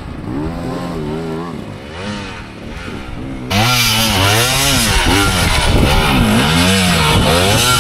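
Dirt bike engine revving up and down again and again, its pitch rising and falling with the throttle, under heavy load on a hard enduro climb. It gets much louder and closer about three and a half seconds in.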